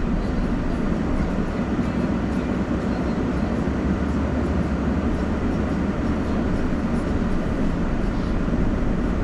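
Steady car noise heard from inside a slowly moving or idling car: a low, even engine and road rumble.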